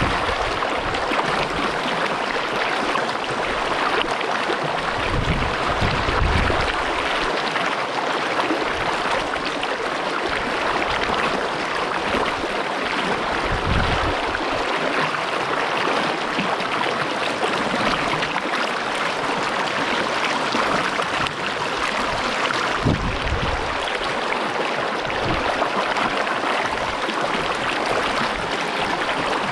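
Creek water rushing steadily over rocks, with a few brief low rumbles along the way.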